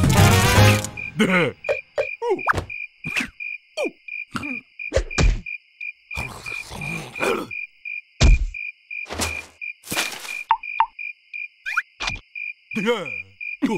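Cricket chirping as a steady, rapidly pulsing high tone. Over it come scattered short cartoon vocal noises from the larva, falling grunts and squeaks, plus brief rustles. Background music cuts off about a second in.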